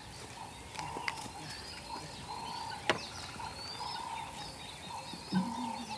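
Wild birds calling: a short note repeated many times and small rising chirps, over a faint natural background hiss. A sharp click comes about three seconds in, and a brief low animal call near the end.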